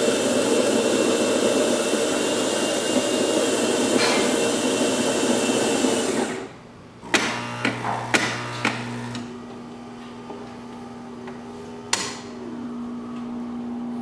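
Saeco Royal superautomatic espresso machine starting a shot. Its built-in grinder runs loudly for about six seconds and stops. The brew unit clacks several times, and the pump hums steadily from about seven seconds in, with another sharp click near the end.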